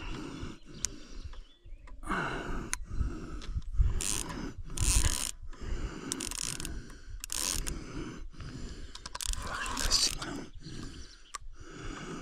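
Carp rod's spinning reel ratcheting in irregular bursts: the drag giving line as a hooked carp pulls against it.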